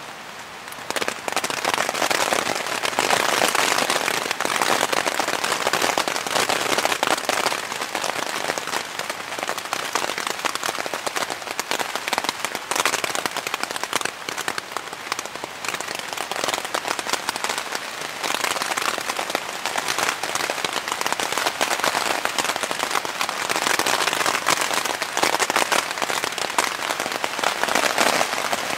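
Heavy storm rain pelting the fabric of a North Face Triarch tent, heard from inside as a dense patter. It steps up about a second in, then swells and eases in waves.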